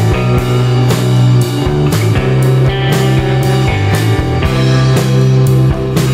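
Rock music soundtrack with guitar and drums over a steady beat of about two hits a second.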